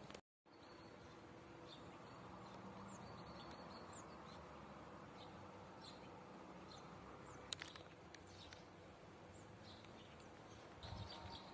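Faint outdoor ambience: a low steady hiss with occasional short, high bird chirps scattered through it.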